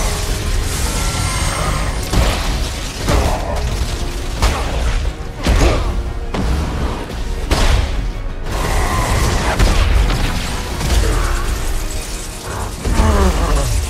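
Superhero-film fight sound mix: repeated heavy hits and booms, whooshing sweeps and crackling electric bolts over a dramatic score, with a long falling sweep near the end.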